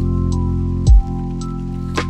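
Lo-fi background music: held keys and bass notes with a soft kick drum about a second in and light, ticking percussion on top.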